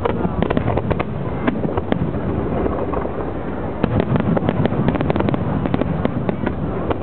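Aerial fireworks display going off: a dense string of sharp bangs and crackles over a continuous rumble, thickest in the second half.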